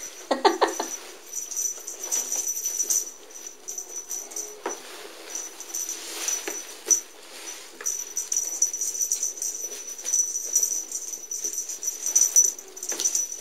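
Cats playing with a feather wand toy: rustling, scuffling and light knocks on carpet and fleece, with a brief cat cry about half a second in, over a steady high whine.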